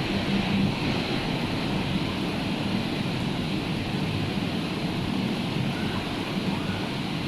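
Rough, storm-driven sea surf with wind: a steady, unbroken rushing noise of waves.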